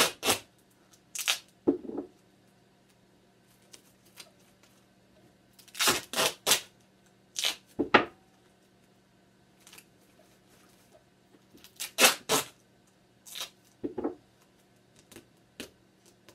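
Duct tape being pulled off the roll and torn in short noisy rips, coming in clusters every few seconds, over a faint steady hum.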